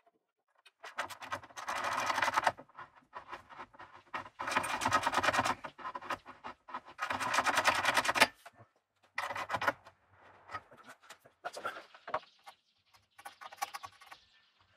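Rasping metal scraping from hand work on stainless steel rail tubing, in three runs of one to one and a half seconds, with lighter taps and clicks between them.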